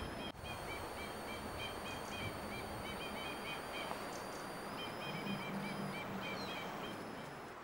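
Two-barred crossbills calling, a run of short, quick contact notes from several birds together that pauses about three seconds in and starts again about two seconds later.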